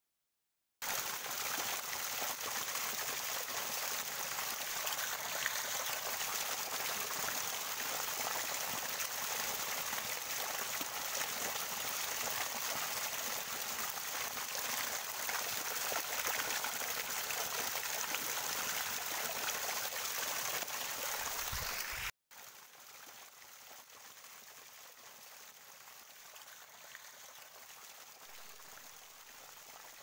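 Water of a small waterfall splashing steadily over rocks. About twenty seconds in it cuts off suddenly, leaving a much fainter steady hiss.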